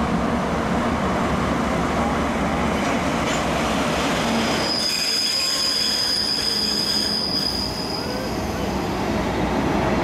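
DE10 diesel-hydraulic locomotive rumbling past at low speed with its train of coaches. About five seconds in, a steady high-pitched wheel squeal sets in from the train on the curving track and lasts about three seconds.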